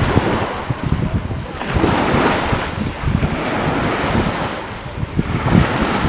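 Wind buffeting the microphone, with a rushing noise that swells and fades every second or two.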